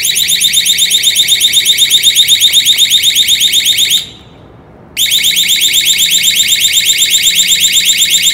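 Motion-triggered anti-theft alarm siren sounding a loud, high-pitched warble of about eight pulses a second. It stops about four seconds in and starts again about a second later.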